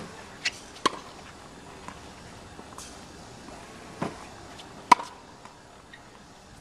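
Tennis balls bouncing on a hard court and being struck with a racket during forehand practice: a few sharp pops in the first second, then a bounce about four seconds in followed by a loud racket hit just under a second later.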